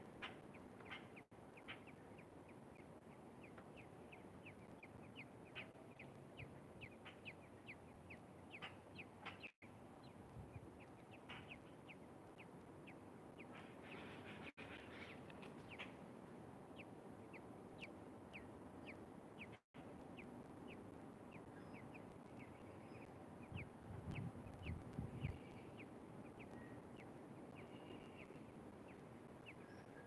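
Faint, rapid high peeping of newborn American robin nestlings begging in the nest, the peeps thinning out in the second half. A brief low rumble about two-thirds of the way through.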